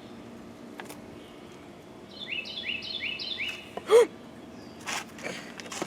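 A bird chirps a quick run of about four rising notes, then comes a short, sharp squeak that drops in pitch, the loudest sound here, followed by a couple of soft knocks.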